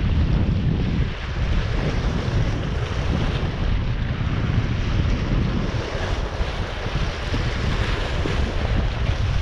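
Wind buffeting the microphone: a steady rushing noise with a heavy, fluttering low rumble.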